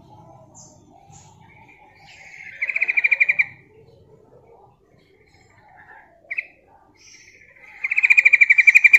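Yellow-vented bulbul giving two rapid stuttering chattering calls, about a second long each: one a few seconds in and a longer one near the end. A single short chirp comes between them. This is the female's call to draw males, used as a lure call.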